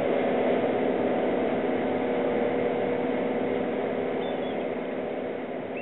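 A steady mechanical engine hum with a constant low drone, slowly fading away in the last couple of seconds.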